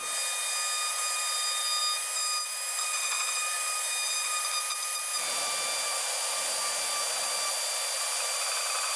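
Die grinder with a tapered burr running at a steady high whine, grinding a V-groove into a broken plastic headlight tab to prepare it for welding. The sound shifts slightly about five seconds in.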